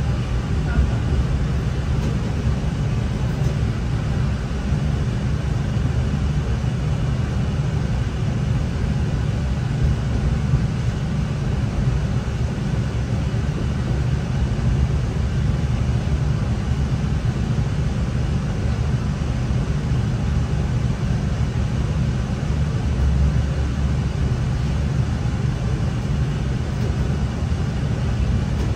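NI Railways Class 3000 (CAF C3K) diesel multiple unit under way, heard from inside the passenger carriage: a steady low rumble of the underfloor diesel engines and the wheels running on the track.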